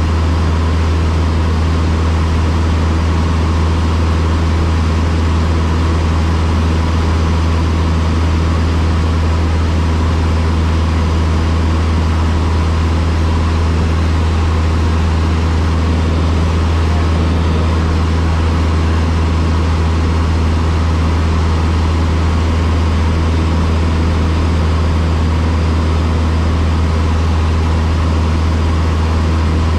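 Cessna 152's four-cylinder Lycoming O-235 engine and propeller running steadily in flight: a constant, loud low drone with an even rushing noise over it, heard from inside the cabin.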